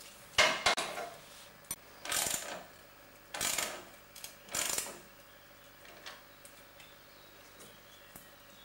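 Metal parts and hand tools clinking and scraping as hands work on a ride-on mower's steering linkage. A sharp clatter comes about half a second in, followed by three short scraping rustles, then a few faint clicks.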